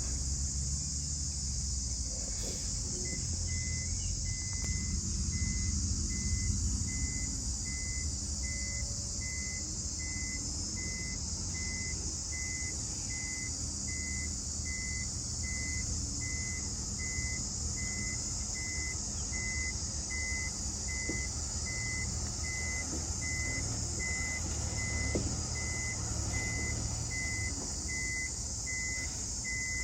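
Diesel engine of heavy earthmoving machinery running steadily, with a reversing alarm beeping about once a second from about three seconds in. A steady high hiss sits over it.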